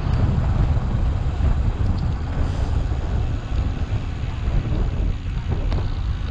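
Wind rumbling on the microphone of a camera on a moving bicycle, a steady low buffeting that covers any road noise.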